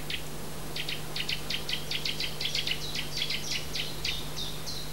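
Woodland chirping: a rapid series of short, high notes, about five a second, beginning about a second in and shifting somewhat in pitch from note to note.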